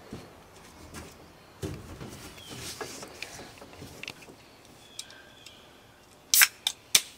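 Aluminium Sprite can being opened by its pull tab: a loud sharp crack with a short hiss, followed quickly by two smaller clicks, near the end. Before it, faint rustling and light knocks, with a few faint bird chirps.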